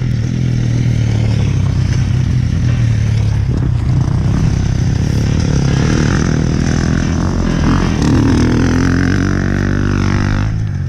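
Dirt bike engine idling steadily close by, while another motocross bike passes on the track about halfway through, revving up and down.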